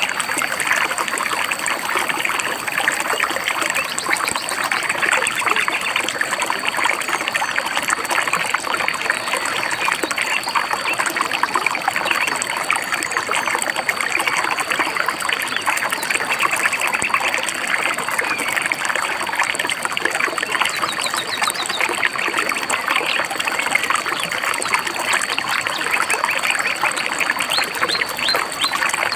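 A shallow river babbling and trickling steadily over stones. Faint bird chirps come through a few times, near the middle and near the end.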